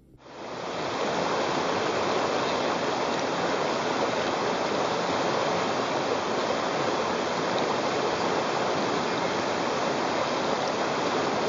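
Shallow river flowing steadily over rocks, a continuous even water noise that fades in over the first second.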